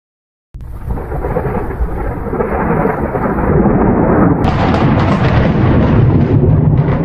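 Loud rumbling noise, a sound effect laid under an animated outro card, starting about half a second in and turning brighter and hissier about four seconds later.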